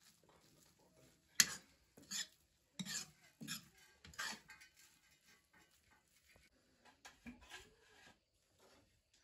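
Metal dishes and utensils clinking and clattering: about five sharp clinks in the first few seconds, then softer, scattered knocks.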